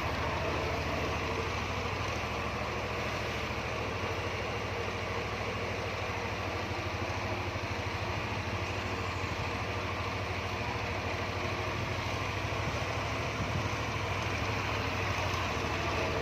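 Yamaha NMAX scooter's single-cylinder engine idling steadily.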